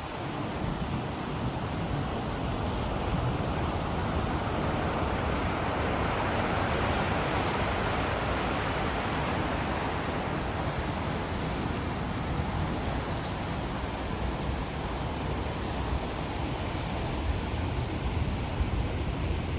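Steady rush of wind and water from a coastal ferry under way, an even noise that swells a little around the middle.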